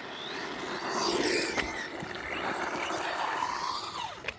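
Electric motor of a Blackzon Smyter Turbo RC car whining, its pitch rising and falling several times as the throttle is worked, over a steady hiss of tyre noise.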